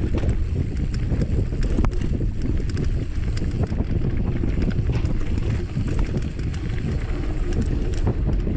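Mountain bike rolling fast down a dirt singletrack: a steady low rumble of tyres and wind buffeting the microphone, with scattered clicks and rattles from the bike over bumps.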